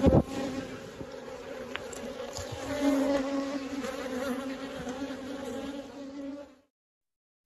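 Honeybees buzzing around a hive entrance, a steady low hum that swells about three seconds in and cuts off suddenly near the end. A sharp knock right at the start.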